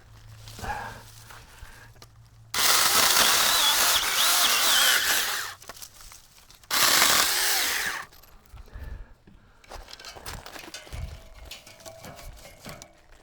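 Saker battery-powered handheld mini-chainsaw running and cutting firewood in two bursts: one of about three seconds, then a shorter one of just over a second, each starting and stopping suddenly.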